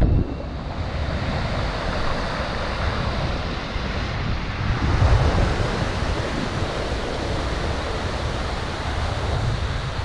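Steady rush of river whitewater rapids, with wind buffeting the microphone as a low, uneven rumble that swells briefly about five seconds in.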